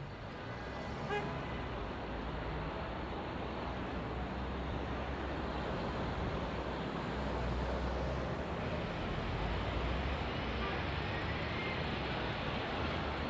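A steady rushing noise with a low rumble, growing slightly louder toward the middle, with a brief pitched toot about a second in.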